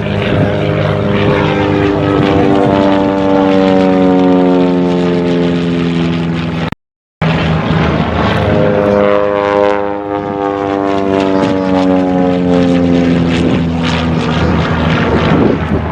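Propeller-driven airplane flying past, its engine note falling steadily in pitch as it goes by. The sound cuts out briefly about seven seconds in, then a second falling engine note follows.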